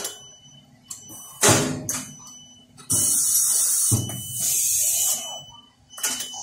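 Pneumatic welding-cell machinery: two heavy metallic knocks about one and a half and four seconds in, and a long hiss of compressed air exhausting for about two seconds from about three seconds in, over a faint steady high tone.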